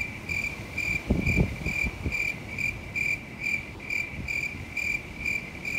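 A cricket chirping sound effect, in regular chirps a little over two a second, dubbed over the edit. A few low thumps come a little over a second in.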